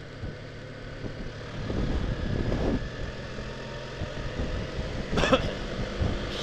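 Motorcycle engine running as the bike rides on, with wind rushing over the microphone. The noise grows louder about one and a half seconds in as the bike speeds up.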